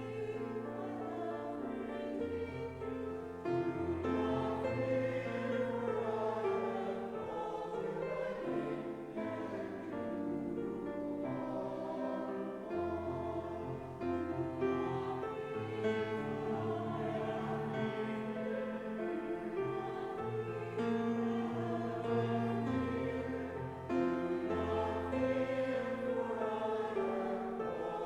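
Church choir singing an anthem, several voices in harmony, with instrumental accompaniment holding low bass notes underneath.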